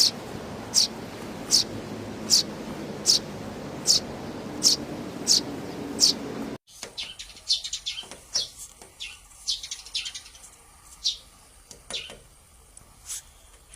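Sparrow chirping: single short chirps repeated evenly about every three-quarters of a second over a steady background hum. A little past halfway it cuts to another recording with a quiet background and quicker, irregular chirps.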